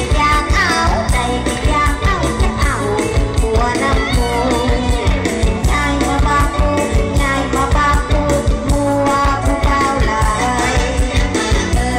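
Live mor lam band music played loud through a stage sound system, with a steady heavy bass beat under a sung melody.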